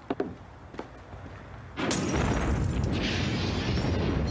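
A few light clicks, then about two seconds in a sudden loud explosion boom, followed by a dense rumble with a crackling hiss above it that keeps going.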